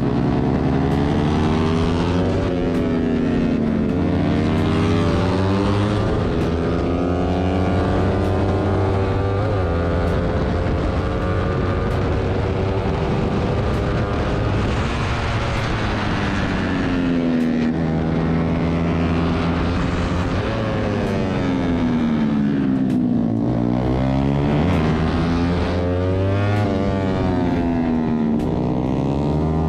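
Yamaha R15 V3 single-cylinder engine heard onboard at racing speed, its pitch climbing and dropping again and again as it accelerates up through the gears and backs off for corners, with wind rush.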